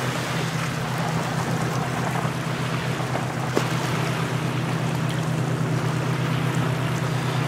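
A motorboat's engine running steadily, a low even hum, over the hiss of wind and small surf breaking on the beach. A single short click about three and a half seconds in.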